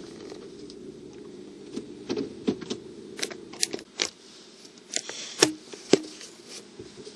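A car's engine idling, heard from inside the cabin, under a run of sharp clicks and small rattles as the parked car is shut down. The engine hum stops about four seconds in, and two loud clicks follow.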